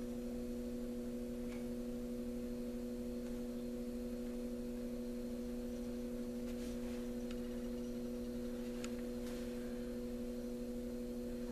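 A steady background hum made of a few fixed tones, with a few faint ticks.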